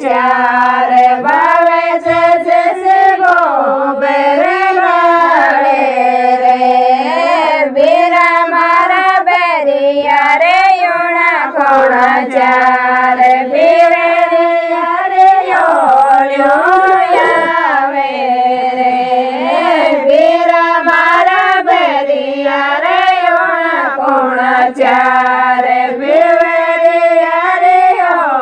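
Women singing a Marwari folk song, a beera geet, together without instruments: a drawn-out melody that rises and falls in long held phrases.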